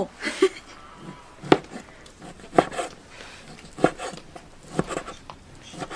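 Steel cleaver chopping cured pork into small cubes on a wooden chopping board: single sharp knocks on the board, roughly one every second, unevenly spaced.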